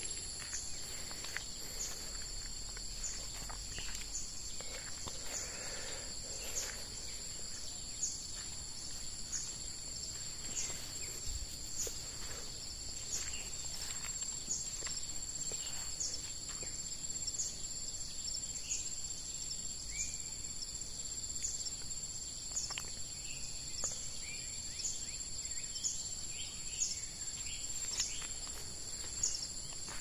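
Forest insects singing: a steady, high-pitched chorus that pulses about once a second, with a few brief bird chirps and soft footsteps on a dirt path.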